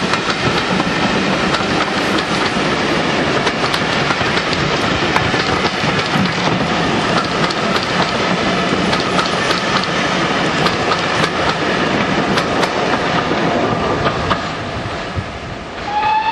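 Passenger coaches rolling past close by, wheels rumbling and clicking on the rails, the noise fading as the last coach goes by. Near the end a locomotive whistle sounds, one strong tone that rises slightly as it starts.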